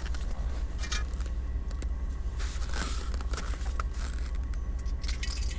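Steady low rumble of wind buffeting the microphone, with a few light clicks and clanks from the metal parts of a small portable kettle grill being handled.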